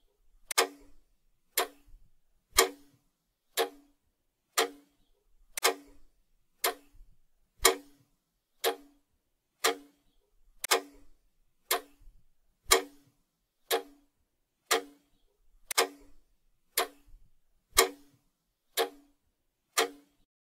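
Clock-ticking sound effect, one sharp tick about every second, keeping time for a quiz countdown timer as it runs down its last twenty seconds.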